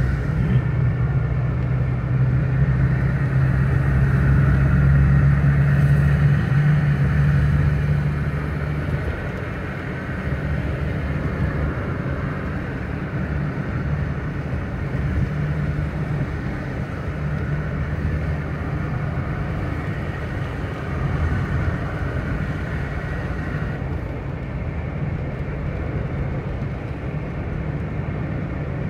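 Car driving on a wet highway, heard from inside the cabin: a steady engine drone with tyre hiss from the wet road. The drone is louder for the first eight seconds or so, then settles.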